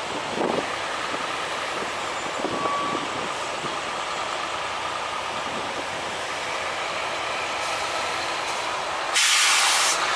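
Semi-truck running slowly, heard from inside the cab, with a few light knocks in the first three seconds. About nine seconds in, a sudden loud hiss of air from the truck's air system lasts just under a second.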